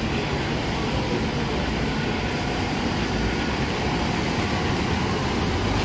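Diesel NJ Transit coach bus pulling past at close range: a steady engine rumble with tyre and road noise, rising slightly near the end.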